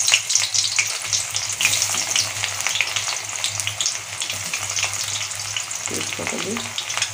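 Sliced onions frying in hot mustard oil in a metal kadai, sizzling and crackling steadily while a spatula stirs them.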